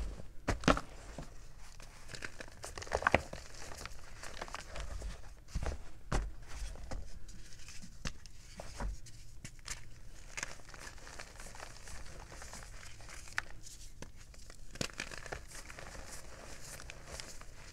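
Blocks of gym chalk crushed and crumbled by hand in loose chalk powder: a steady run of irregular soft crunches and crackles, with a few louder crunches in the first three seconds.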